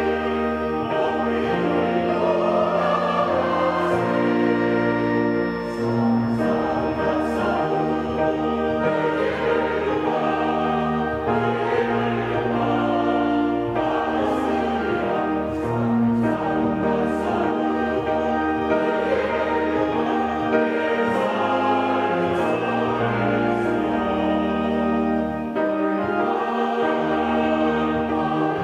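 A mixed church choir of men and women singing a Korean hymn, accompanied by pipe organ and piano, with long sustained bass notes beneath the voices.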